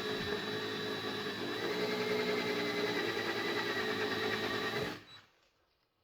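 Electric drill running steadily as it drills out a stuck screw, its pitch rising slightly about a second and a half in; it stops about five seconds in.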